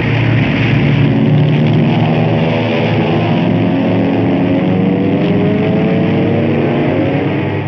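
Radial piston engines of several TBF Avenger torpedo bombers droning in formation flight: a loud, steady drone of overlapping tones that waver slightly against each other.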